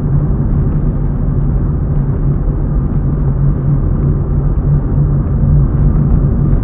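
Steady rumble of a car driving along a road, engine and tyre noise heard from inside the cabin.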